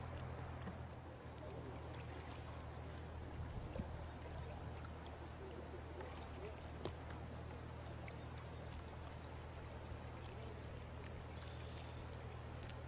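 Faint splashing and trickling of kayak paddle blades dipping into calm lake water, with a few small ticks, over a steady low hum.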